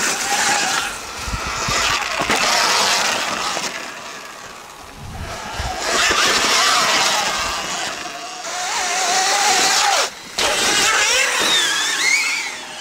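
Surron electric dirt bikes riding a dirt forest trail: the electric motors whine, rising and falling in pitch with the throttle, over the rush of knobby tyres on dirt and rock. The sound swells and fades as the bikes pass, and drops out briefly about ten seconds in.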